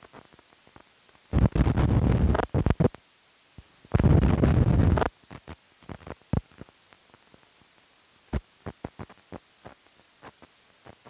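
Film soundtrack noise as a countdown leader runs through: two loud bursts of noise, each about a second long, in the first half, then scattered clicks and pops.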